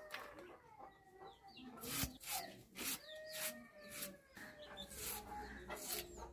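Chickens clucking, with several drawn-out calls each about a second long, over the sharp cuts of a red onion being sliced on a boti, a fixed floor blade.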